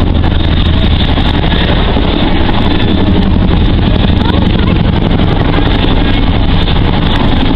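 Boeing Chinook tandem-rotor helicopter flying low overhead: the rapid, loud beat of its two sets of rotor blades over the steady rush of its engines.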